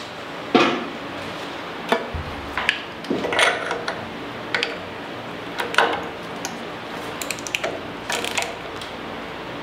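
Irregular metallic clicks and scrapes of a temperature sender being threaded into a marine diesel engine and tightened with hand tools, with a quick run of ratchet-like clicks about seven seconds in, over a steady low hum.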